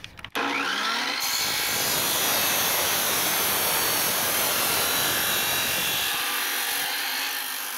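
Abrasive chop saw starting up about a third of a second in, its motor spinning up with a rising whine, then grinding steadily through a steel exhaust tube.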